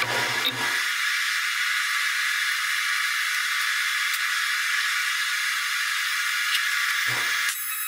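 A steady hiss throughout. Under it come a short low rattle in the first moments, as a steel clamp is tightened on the welding table, and another brief low knock about seven seconds in.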